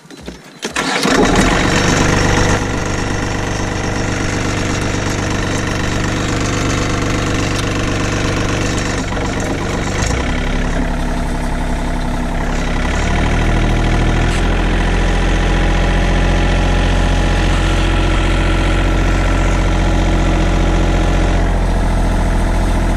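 Tractor engine running steadily, its pitch stepping up about thirteen seconds in as it pulls the vibrocultivator through the field.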